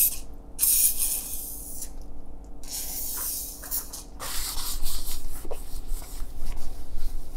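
Aerosol can of Deep Creep penetrating oil spraying through its straw into the cylinder bores to clean them, in two long hissing bursts of about two seconds and one and a half seconds. Softer rubbing and handling noises follow.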